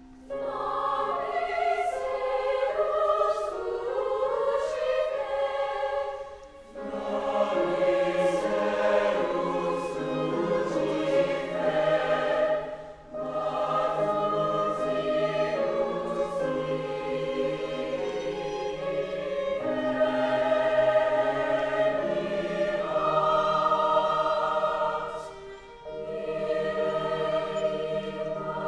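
Large mixed choir singing a slow sacred choral piece, accompanied by piano and violin. Upper voices carry the opening phrase, lower voices join about seven seconds in, and the singing breaks off briefly between phrases twice more.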